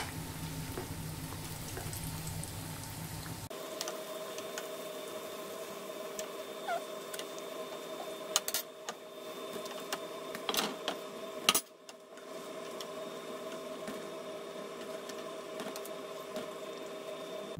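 Small doughnuts of yeast dough frying in a pan of hot oil, a steady sizzle. A faint steady hum comes in about three and a half seconds in, and a few sharp clicks of a metal fork against the pan come between about eight and twelve seconds in as the doughnuts are turned and lifted out.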